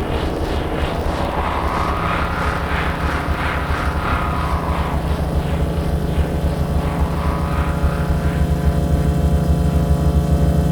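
Harsh noise: a distorted, heavily processed drone made from mangled fridge sounds. It has a dense low rumble with a pulsing upper layer, and a stack of steady hum-like tones builds from about halfway through.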